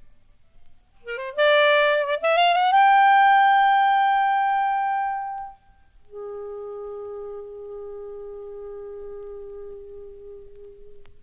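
Woodwind in a free-jazz piece: a quick rising run of notes settles into a loud held high note, then after a short break a softer, lower note is held for several seconds.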